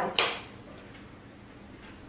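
A single short click-and-rustle about a quarter second in, as the microscope's LED ring light is switched on at its small controller; then only a faint steady low hum.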